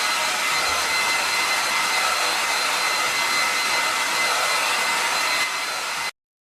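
Hair dryer running steadily: an even rush of air with a thin whine on top. It drops a little in level near the end, then cuts off abruptly.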